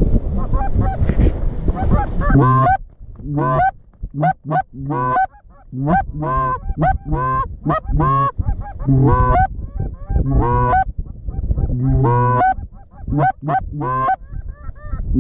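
Goose honks, one after another at about one or two a second, each call rising then dropping in pitch, some with a low droning note under them. The first two seconds or so also carry a low rumbling noise.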